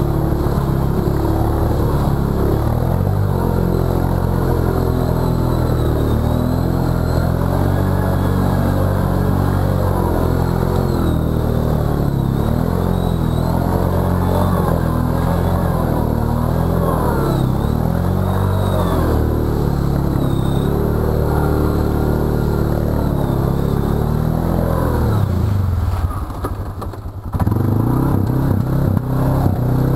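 Arctic Cat ATV engine running under throttle through deep muddy water, its pitch rising and falling as the rider works the throttle. About 26 seconds in it drops off briefly, then picks straight back up.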